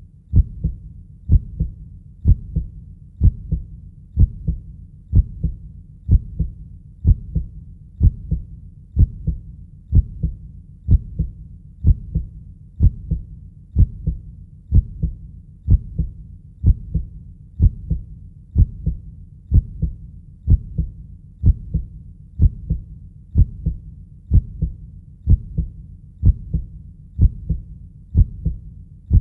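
Human heartbeat, a steady lub-dub double thump about once a second.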